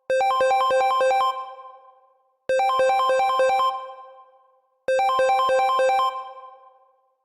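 iPhone ringtone: short bursts of rapid repeated electronic notes, about six a second, sounding three times about two and a half seconds apart, each burst ringing out before the next.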